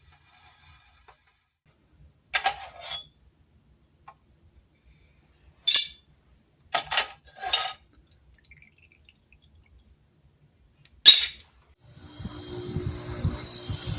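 Metal tool parts clinking and knocking against a hard container: five short, separate clinks, the loudest about eleven seconds in. Near the end a steady whirring noise with a low hum starts up.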